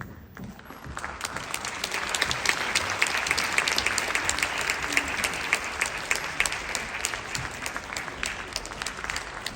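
Audience applauding in a hall, a dense patter of many hands clapping that swells up about a second in and eases a little near the end.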